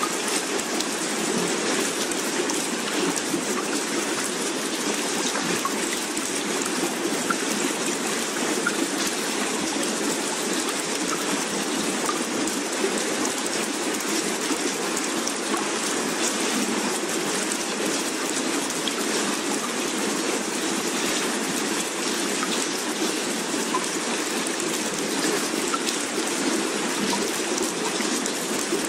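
Steady rushing water noise, even and unbroken, with no waves rising or falling and no distinct drops or splashes.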